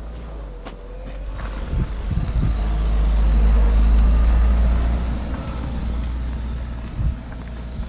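A motor vehicle driving past with an engine rumble that grows louder to a peak about three to four seconds in, then fades away.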